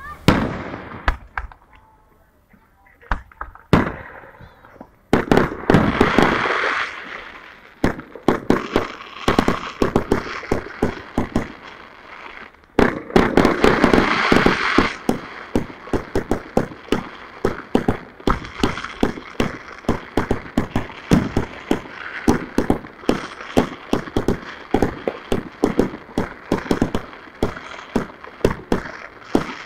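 Aerial fireworks going off: a few separate bangs at first, then from about eight seconds in a near-continuous run of sharp bangs and pops, several a second, with two spells of loud continuous noise.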